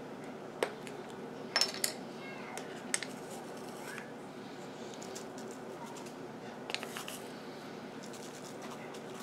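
Glass spice jar being opened and a measuring spoon scooping from it: scattered sharp clicks and taps of the plastic lid and the spoon against the glass, with a cluster about two seconds in and a pair near the end, over a steady low hum.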